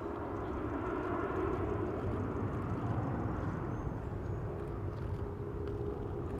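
Steady engine drone of a C-130H Hercules's four turboprop engines, an even hum with a few held tones that does not change in pitch.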